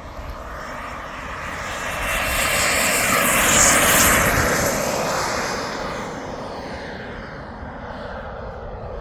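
RC jet's KingTech K102 turbine passing close by. The rushing jet noise grows louder to a peak about four seconds in, then fades away.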